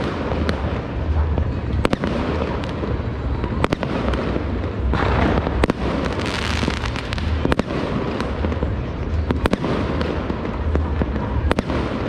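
Many fireworks going off across a city: a continuous crackle and rumble, with sharp bangs at irregular intervals throughout.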